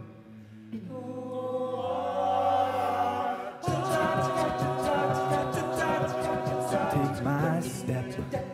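All-male a cappella group singing wordless backing: a soft held chord over a low bass note swells for a few seconds, then about three and a half seconds in the full group comes in louder with a driving rhythmic passage over a steady vocal-percussion beat.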